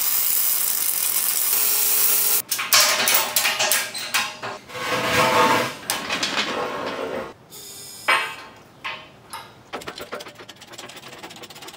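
Welding arc crackling and hissing steadily for about two seconds, then cutting off. Irregular metallic clanks, scrapes and ringing follow as a large steel pipe hanging by a chain from an engine hoist is handled, with one sharp clank near the end.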